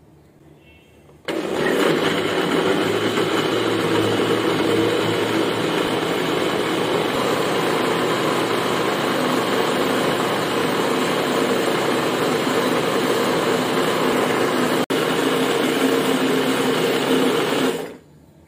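Electric countertop blender switched on about a second in, running steadily as it purées bananas with liquid into lassi, with a momentary break near 15 s, then switched off near the end.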